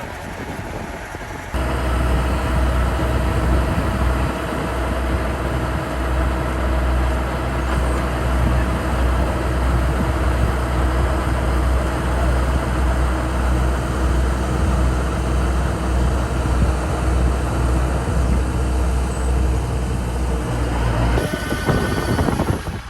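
Kubota rice combine harvester's diesel engine running steadily under load, with a loud low hum. The sound starts abruptly a second or two in and shifts abruptly near the end.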